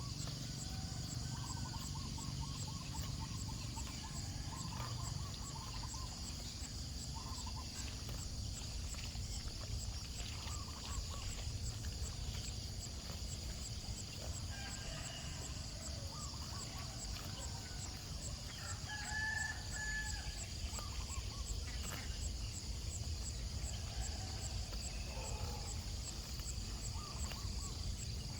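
Farmyard chickens clucking, with a rooster crowing, over a steady high insect buzz and a constant low rumble.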